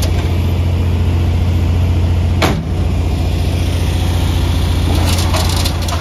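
Farm tractor engine idling steadily with a strong low hum. A short whoosh about two and a half seconds in, and a few light clicks near the end.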